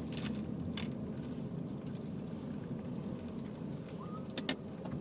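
Steady low rumble of a car driving, heard from inside the cabin, with a few light clicks and knocks.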